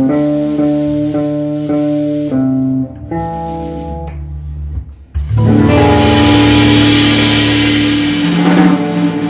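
Jazz trio of archtop electric guitar, organ and drum kit playing the closing figure of a bop tune. A string of held chords leads to a brief drop about five seconds in, then one long final chord rings out with a cymbal wash over it.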